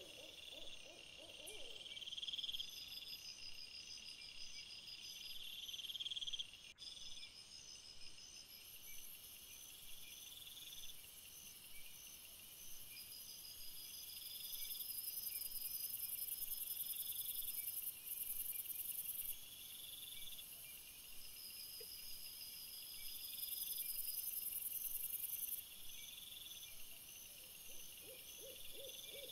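Chorus of crickets: repeating trains of fast pulsed chirps, joined about nine seconds in by a high, steady buzz that stops and starts again and is the loudest sound.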